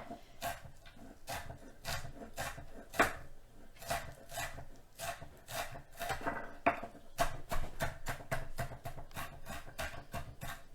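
Knife chopping onion slices on a cutting board to mince them: a run of sharp, irregular strikes, quickening to about four or five a second in the second half.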